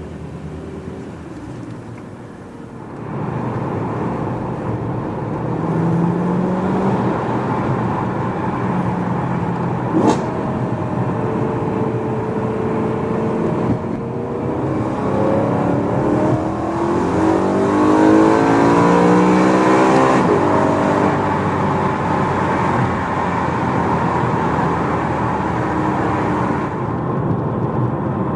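BMW E92 M3's V8 engine with a primary decat x-pipe and a stock rear silencer, heard from inside the cabin. It is light at first, then pulls under acceleration with the revs rising in stretches. The longest climb comes about two thirds of the way through and then drops away. A sharp click comes about ten seconds in.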